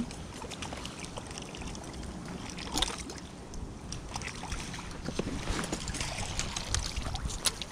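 Wind rumbling on the microphone, with scattered small clicks and rustles of handling and one sharper knock about three seconds in.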